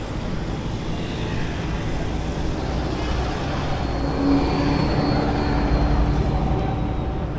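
Busy street traffic noise with a steady low rumble, and a motor vehicle passing close: its engine hum swells about four seconds in and fades near the end.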